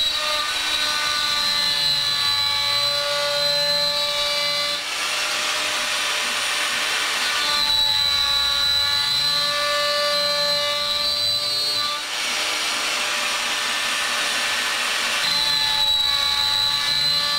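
Handheld electric plunge router running at speed and cutting into a wooden board, a loud steady high whine whose tone shifts a few times as it is worked through the cut.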